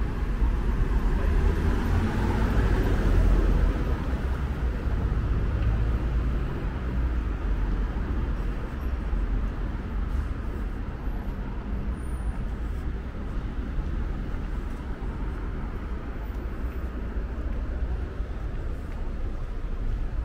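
Street ambience of road traffic: a vehicle goes by in the first few seconds, then a steady low traffic rumble.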